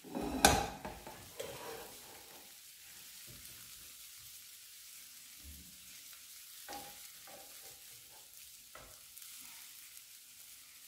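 Large prawns sizzling softly in oil in a frying pan, with a fork clicking against the pan now and then as they are lifted out. A sharp knock about half a second in is the loudest sound.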